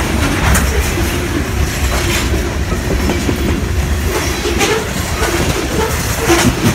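Train passing on the track: a steady low rumble with wheels clicking and clacking over the rail joints.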